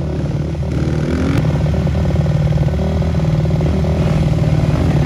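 Motocross bike's single-cylinder engine idling steadily, getting a little louder about a second in.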